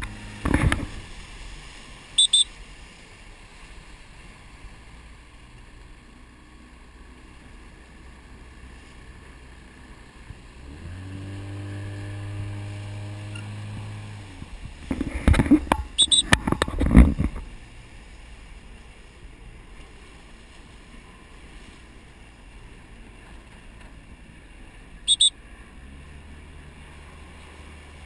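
A coach's whistle gives three short blasts: about two seconds in, in the middle, and near the end, over steady wind and water noise on the microphone. Loud knocks and bumps come right at the start and in a cluster in the middle, and a low engine-like drone runs for a few seconds just before them.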